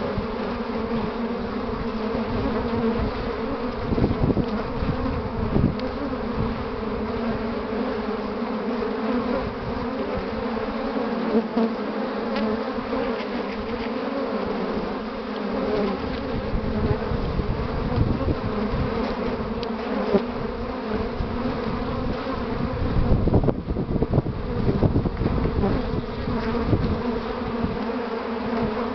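Dense, steady buzzing of many honeybees at a hive entrance, a busy flight of foragers bringing in willow pollen. Scattered low thumps sound through it, most around two-thirds of the way in.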